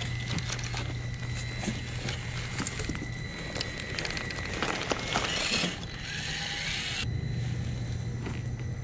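Small electric RC crawler (Traxxas TRX-4M Bronco) driving slowly over broken wooden floorboards and debris. A steady high motor-and-gear whine runs under irregular clicks and crunches of wood and grit beneath the tyres, with a louder scraping rush for about two seconds midway.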